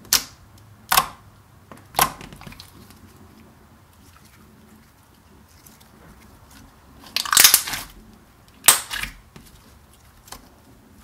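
Thick slime squeezed, poked and stretched by hand, popping and crackling as trapped air is pressed out: three sharp pops about a second apart at the start, a longer crackling burst about seven seconds in, and another pop shortly after.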